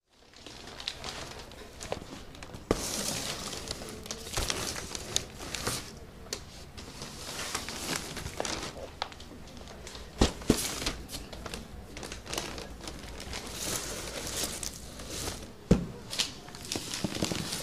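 Crinkling and rustling of something being handled, in uneven patches, with a few sharp knocks; the loudest come about ten seconds in and near the end.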